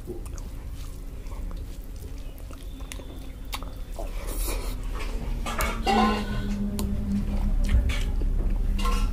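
Eating rice with the fingers: a hand mixes rice and dal on a plate, then a mouthful is chewed with wet mouth clicks, growing louder in the second half.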